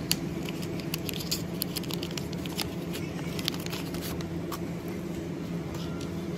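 Paper banknotes being handled and folded by gloved fingers: many small irregular crinkles and clicks over a steady low hum.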